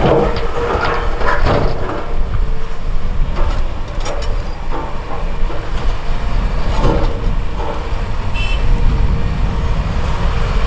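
Caterpillar 340F hydraulic excavator's diesel engine running under load while its bucket drops large rocks into a dump truck's steel bed. The boulders land with heavy clattering thuds, most of them in the first two seconds and more around four and seven seconds in.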